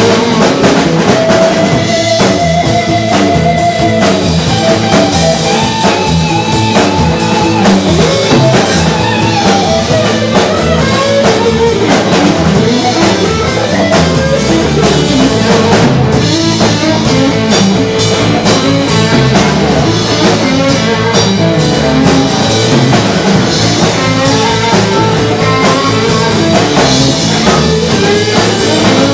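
Live rock band playing: electric guitars, bass guitar and drum kit, with a lead line bending and sliding over the rhythm.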